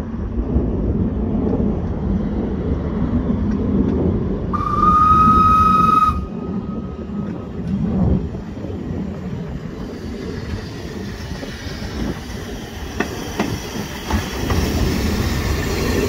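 Small narrow-gauge steam locomotive Palmerston, an 1860s George England 0-4-0 saddle tank, running in with a low rumble. Its steam whistle sounds once for about a second and a half, a little under a third of the way in. In the later part, sharp clicks of the wheels and running gear come in as it draws near.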